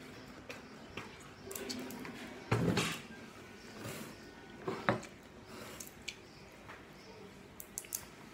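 Close-up eating sounds: chewing, lip smacks and small clicks as food is eaten by hand, with a louder short burst of noise about two and a half seconds in and a sharp click near five seconds.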